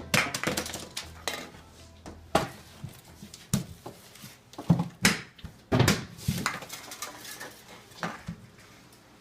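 A string of irregular knocks and clatters, about a dozen, the loudest around five to six seconds in.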